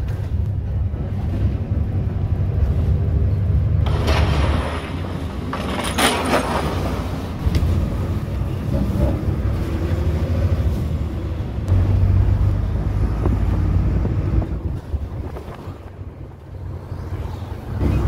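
City bus rumbling along, heard from inside the cabin: steady low engine and road noise. A louder rushing noise swells for a few seconds about four to seven seconds in.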